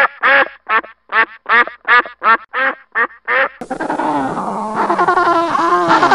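Duck quacking in a quick, regular series of loud quacks, about two or three a second. About three and a half seconds in it cuts to a different clip: many overlapping high, squeaky animal cries over a noisy background.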